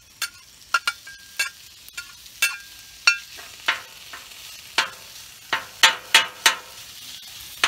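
Metal griddle spatula clacking and scraping against a plate and the steel of a Blackstone flat-top as shaved steak is pushed off onto the griddle and spread out, a sharp clack every second or so, some ringing briefly. Under it, a steady frying sizzle from the hot griddle.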